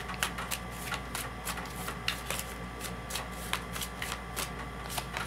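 A deck of tarot cards being shuffled by hand: a string of soft, irregular card flicks and slaps as the cards slide through the hands.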